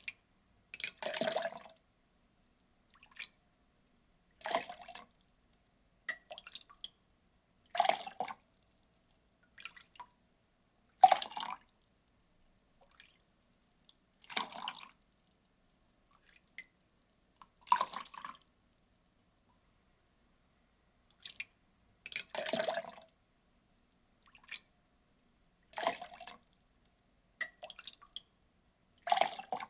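Water poured in short splashes, each lasting about a second and coming roughly every three seconds, with small drips and trickles between them.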